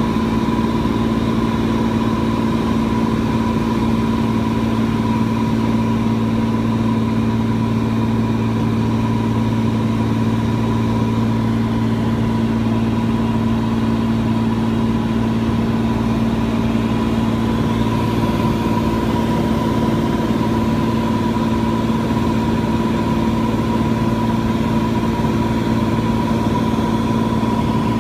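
Small propeller airplane's engine droning steadily in cruise, heard from inside the cabin as a constant low hum with a fainter higher tone above it.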